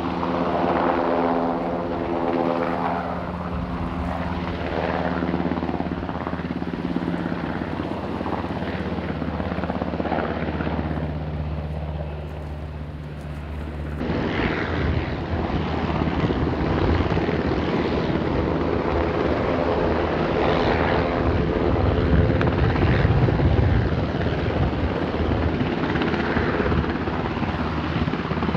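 Sikorsky UH-60 Black Hawk helicopters hovering low over water: the steady beat of the main rotors with the hum of the twin turboshaft engines. About halfway through it changes abruptly to a louder, noisier rush.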